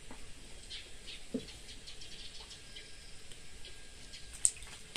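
Small birds and insects chirping and ticking sporadically in the waterside vegetation. A soft knock comes about a second and a half in, and a sharp, high chirp or click near the end is the loudest sound.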